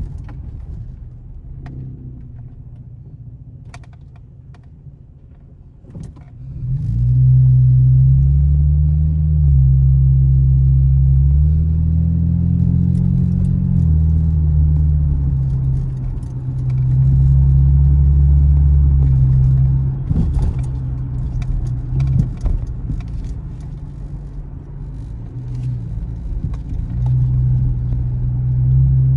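Camaro engine under way: a low rumble for the first few seconds, then about six seconds in it gets much louder as the car accelerates, the pitch climbing and stepping between gears. It eases off around twenty seconds in and picks up again near the end, with light clicks and rattles over it.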